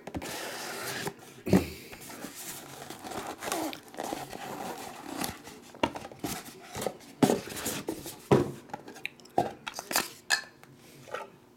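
Box packaging tearing and crinkling as a trading card box is opened, then a foam insert scraping out of the cardboard box and a clear plastic card case being handled and opened, with several sharp plastic clicks and taps.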